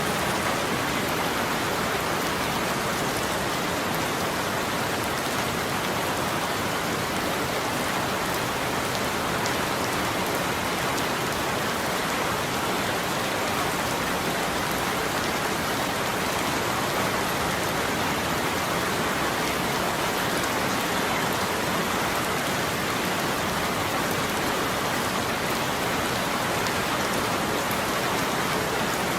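Steady rain falling, an even hiss with fine drop patter that holds level throughout.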